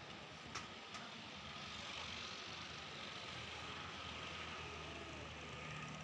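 Faint, steady outdoor background noise with a low hum, broken by two short clicks less than half a second apart about half a second in.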